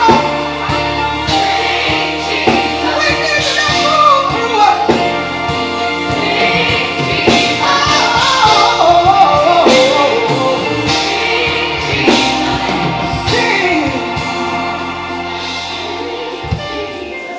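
Gospel worship music with voices singing melodic runs over held low accompaniment notes; the low notes stop near the end.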